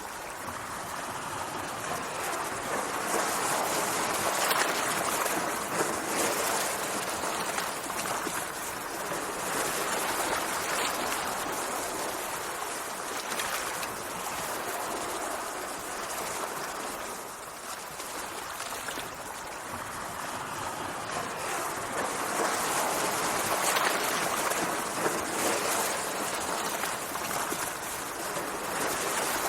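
Sea water washing and rushing, swelling and easing in slow surges every several seconds.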